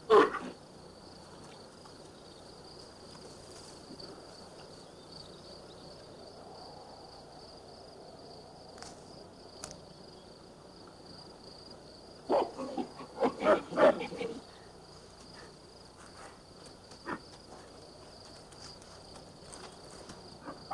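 Steady high insect drone, broken about twelve seconds in by a two-second run of loud ape hoots and screeches; a single ape call sounds right at the start.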